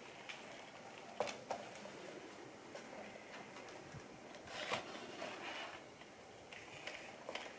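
A few faint clicks and taps with light handling noise, the sharpest about a second in and again near the middle and the end.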